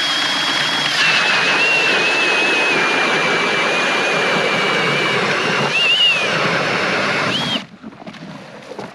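Cordless Milwaukee M18 Fuel drill spinning an Eskimo 8-inch pistol bit ice auger as it bores through lake ice: a high motor whine over the grinding of the blades in the ice. The whine dips slightly in pitch about a second in, rises briefly near six seconds, and stops suddenly about seven and a half seconds in.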